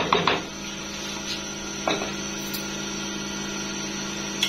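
Wooden spatula stirring nihari in an aluminium pot, with a few knocks and scrapes against the pot just after the start and again about two seconds in. A steady mechanical hum runs underneath.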